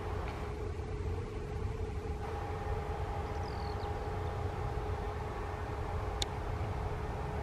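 Airbus A320-family jet airliner taxiing, its engines near idle: a steady low rumble with a constant whine.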